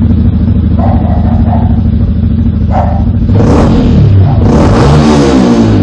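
Yamaha WR125R's single-cylinder four-stroke engine running through a MIVV Stronger steel full exhaust system, idling steadily with a few short throttle blips. It is revved about three seconds in, then revved again for over a second, the pitch rising and falling back toward idle.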